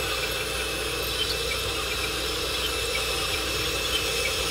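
Small electric motors of a radio-controlled toy excavator giving a steady whine, with a low hum under it.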